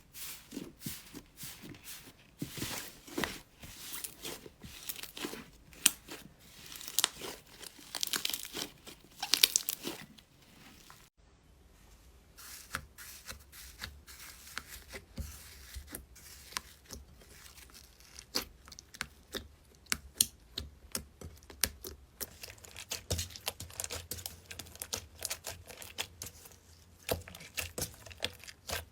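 Slime being squeezed and pulled apart by hand, giving dense crackling, popping and sticky tearing sounds. It stops briefly about eleven seconds in, then a quieter stretch of crackles follows over a low hum.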